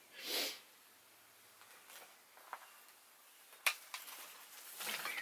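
Mostly quiet, with a brief rustle near the start, two sharp clicks in the middle, and soft rustling with light clicks starting near the end.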